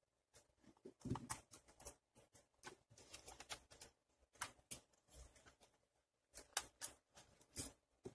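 Faint, irregular clicks and taps of the JIE-STAR AIR MUSHA X9 toy drone's plastic arm and motor pod being handled and prised with tweezers, with a slightly heavier knock about a second in.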